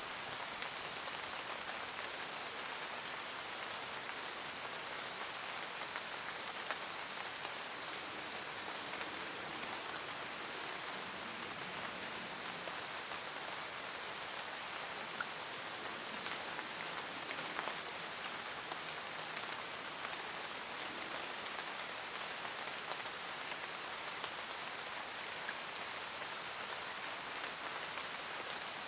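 Steady rain falling in a forest, a dense even patter with many small individual drop ticks.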